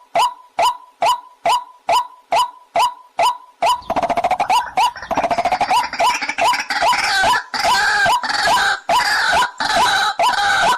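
Waterhen calls: a monotonous series of short, pitched 'kook' notes, a little over two a second, then, about four seconds in, a dense overlapping chorus of harsher calls layered over the repeated notes.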